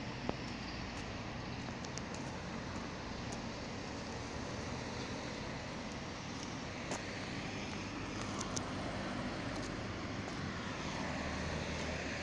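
Steady distant engine rumble outdoors, growing slightly louder near the end, with a few faint clicks.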